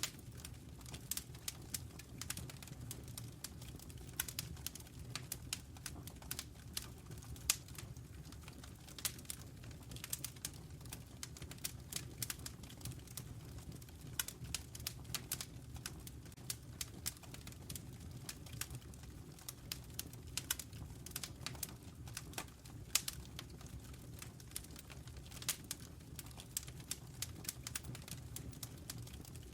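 Wood fire in a fireplace crackling, with many irregular sharp pops and snaps over a low, steady rumble.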